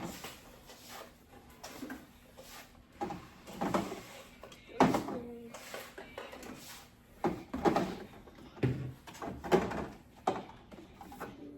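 Irregular knocks and clatters of groceries and containers being set onto refrigerator shelves and into its drawers, a dozen or so separate bumps.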